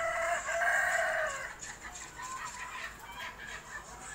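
Rooster crowing: one long drawn-out call that ends about a second and a half in, followed by a few short clucks.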